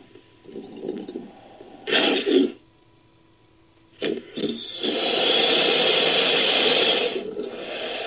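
Crocodilian hisses edited into an American alligator sound effect. A short loud hiss comes about two seconds in, then a pause. Short bursts follow around four seconds, then a long hiss runs from about five to seven seconds and trails off quieter.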